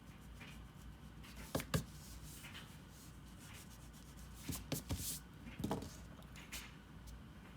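A drawing tool rubbing and scratching on paper in short, irregular strokes, with two sharp taps about a second and a half in.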